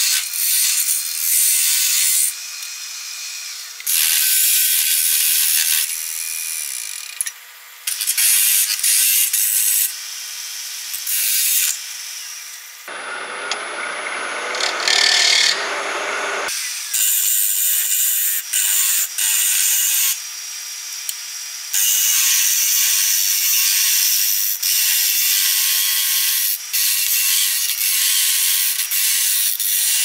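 Hollowing tool cutting inside a spinning wooden cylinder on a wood lathe: repeated scraping, hissing cuts a second or two long, with short pauses between them while the lathe keeps turning.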